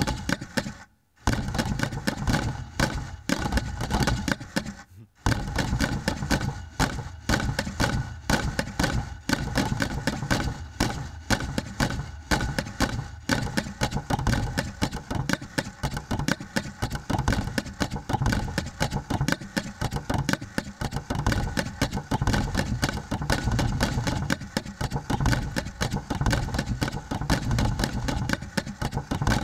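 Modular rhythm machine of eight wooden box modules whose electromechanical beaters strike the wood, playing rapid, dense knocking patterns. The knocks break off briefly about a second in and again around five seconds, then run almost without pause and faster.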